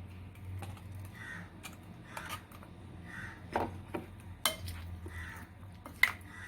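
Wet green marinade paste being stirred into raw chicken pieces in a bowl: soft squelching rustles with a few sharp clinks of a utensil against the dish, the loudest near the end.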